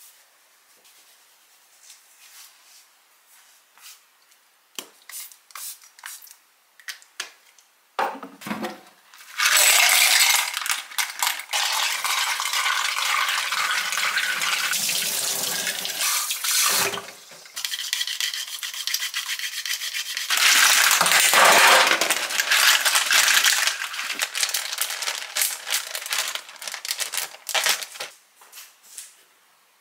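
Kitchen tap running into a glass measuring cup of clams at a stainless steel sink, with the shells clattering and rubbing against each other as they are rinsed. The water starts about ten seconds in, stops briefly near the middle, and runs again for a few seconds. Scattered clicks and rustles come before and after the water.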